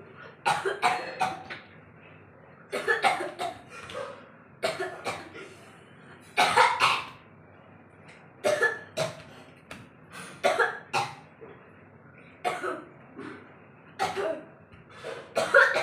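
A person coughing over and over on purpose, in short groups of two or three coughs that come back about every two seconds, as a 'cough dance'.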